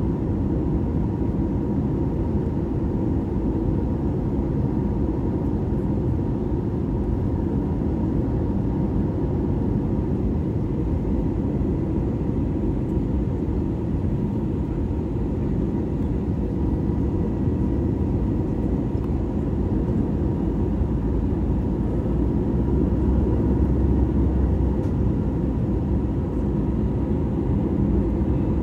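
Airbus A320-232 cabin noise heard from a window seat over the wing: a steady drone of its IAE V2500 engines and rushing air, with a faint steady tone. A deeper, louder rumble swells about three quarters of the way through and then eases.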